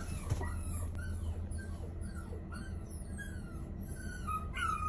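A recording of high, squeaky, whimper-like cries played through a Tesla Model Y's speakers, one short falling cry about every half second, with a louder, longer one near the end. A low, steady cabin hum runs underneath.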